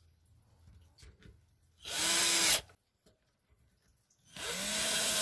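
Cordless drill driving screws through a concealed hinge into a wooden cabinet door. The motor runs twice for about a second each time, its whine rising as it spins up and then holding steady.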